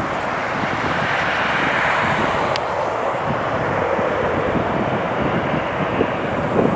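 Airliner jet engines running with a steady rushing roar that swells slightly about a second in, with wind buffeting the microphone.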